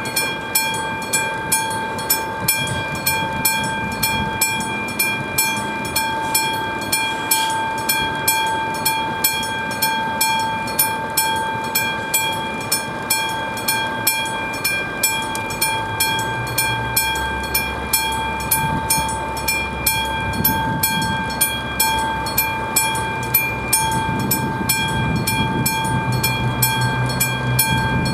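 AŽD 71 level-crossing warning bell ringing in an even, fast series of strokes at about two a second, meaning a train is approaching. A low engine rumble joins about halfway through and grows toward the end.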